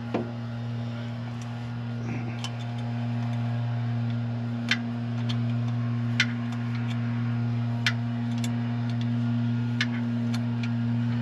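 Sharp metallic clinks of hand tools, a few seconds apart, over a steady low hum.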